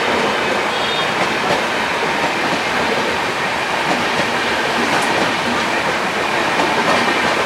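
Express train running slowly past in heavy rain, with occasional wheel clicks over the rail joints above a steady hiss of downpour.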